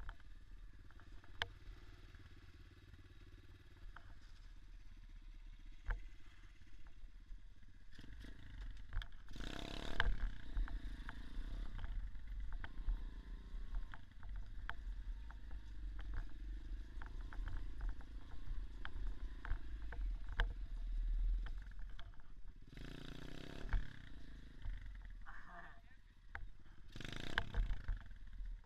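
Small dirt bike engine running with a wavering pitch, over rattling clicks. Three loud rushing bursts about a second long come in: one about a third of the way through and two near the end.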